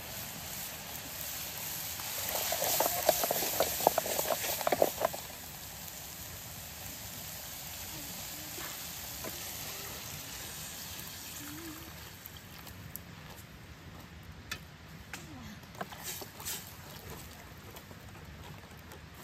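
Water poured from a pot into a hot saucepan over a campfire, splashing and bubbling, loudest a couple of seconds in and then settling to a steady simmer. Later a wooden stick stirs the pan, with a few light knocks.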